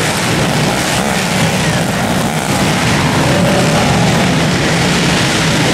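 Several pit bikes' small four-stroke single-cylinder engines running hard together, racing around a dirt track inside an arena.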